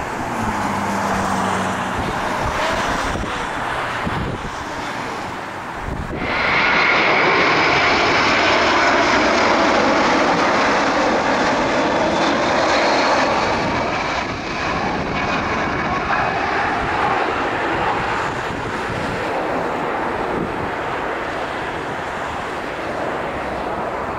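Jet engines of a McDonnell Douglas MD-11F freighter on final approach: a steady roar with a high whine. It jumps suddenly louder about six seconds in and eases off slowly through the second half.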